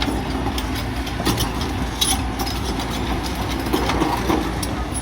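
LiuGong 942F crawler excavator's diesel engine running steadily, with scattered metallic clicks and clanks.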